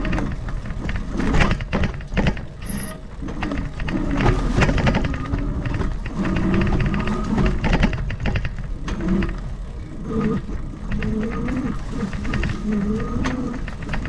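Lectric XP 3.0 e-bike rattling and knocking over a rough, leaf-covered dirt trail, with a low rumble and a wavering hum.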